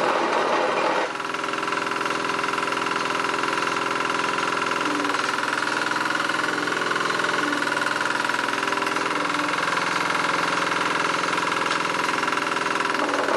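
Small Yanmar diesel engine of a Meiwa MSR5YE walk-behind vibratory roller running steadily. A rougher, noisier running in the first second drops away about a second in, and the rough noise comes back near the end.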